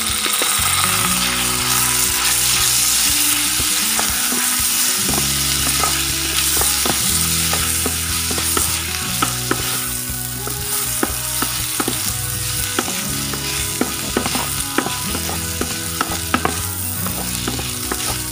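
Mee sua wheat noodles, carrots and shiitake mushrooms sizzling in hot oil in a pan as they are stir-fried with a wooden spatula. Sharp taps and scrapes of the spatula on the pan come often, more so from about halfway through.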